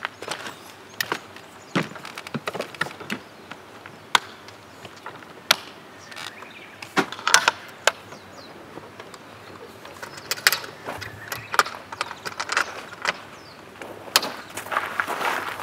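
Scattered clicks, knocks and short rustles as a van's rooftop tent is folded down and closed by hand.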